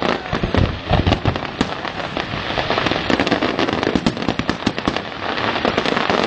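Fireworks going off in a dense barrage: many sharp bangs and crackles a second, with no let-up.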